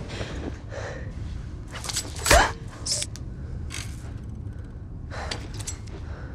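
A person gasping and breathing in short, sharp breaths, with one loud strained gasp that rises in pitch about two seconds in.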